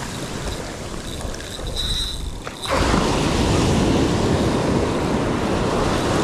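Ocean surf washing on a beach, with wind buffeting the microphone; the sound jumps suddenly louder a little under three seconds in.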